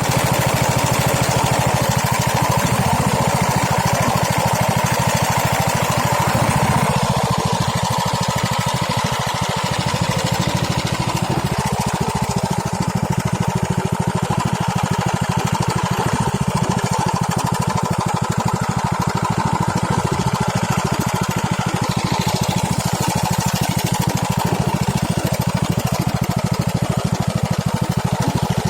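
Small engine running steadily at a constant speed, with a fast, even firing rhythm, typical of a small motor driving a jerrycan boat.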